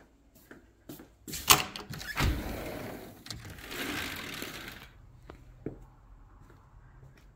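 Sliding glass patio door unlatched and rolled open along its track: a sharp click about a second and a half in, then a rolling rumble and scrape for about three seconds.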